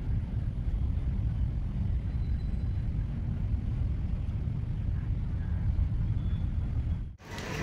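Wind buffeting the microphone: a steady, uneven low rumble. It cuts off about seven seconds in, giving way to a brighter hiss.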